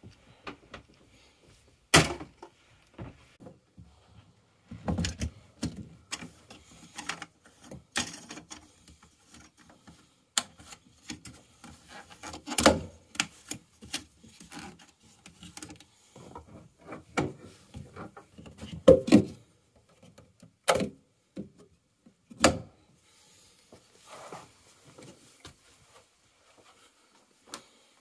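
Handling noise: irregular clicks, knocks and rubbing with several sharper thuds, as a 30-amp marine shore power cord plug is pushed into a boat's shore power inlet and seated.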